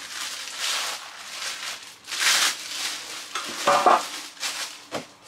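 Plastic packaging bags rustling and crackling in irregular bursts as parts are handled and pulled from a cardboard box, with a sharp knock near the end.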